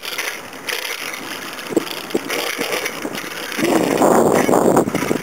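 Wind rushing over the microphone and bicycle tyres rolling on pavement during a ride, growing louder about three and a half seconds in.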